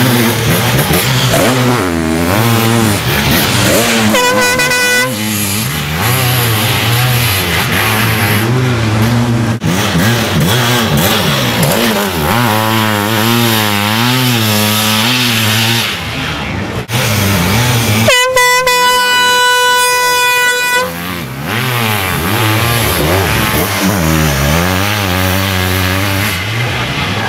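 Sidecar motocross outfits' engines revving up and down as they race past. A steady horn, like an air horn, sounds for about a second early on and again for about three seconds past the middle.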